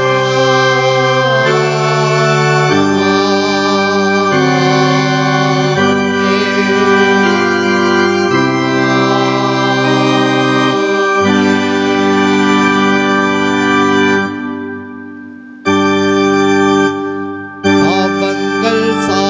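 Organ playing slow held chords that change every second or two. The sound fades away twice near the end and each time comes back at once.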